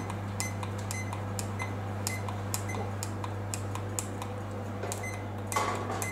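A smartphone clicking as its timer is set: a run of short, sharp ticks, a few a second, over a steady low hum, with a brief louder rustle near the end.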